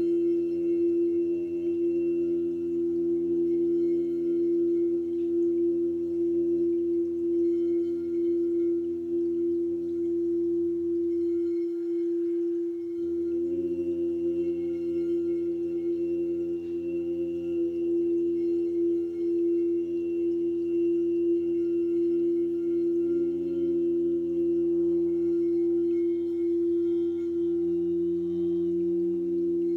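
Sound-healing drone: one strong, steady held tone with several fainter overlapping tones above and below it. The lower tones drop out briefly about twelve seconds in and come back.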